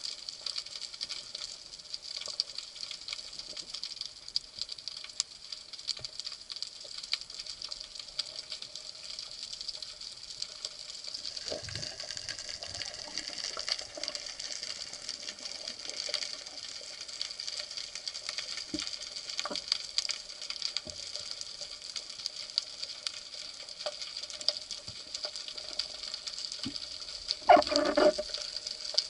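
Underwater ambience heard through an action camera's waterproof housing: a steady hiss with fine crackling and scattered clicks, and a brief louder burst near the end.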